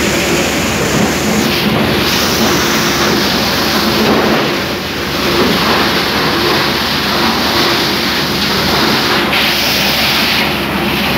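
Kalender plastic crusher (granulator) running, a loud continuous grinding noise over a steady machine hum, the grinding swelling and easing slightly as it goes.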